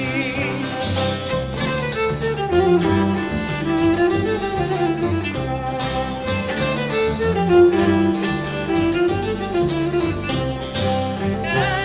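Instrumental break of Cypriot folk music: a viola plays the wavering melody over a strummed laouto and bass keeping a steady beat.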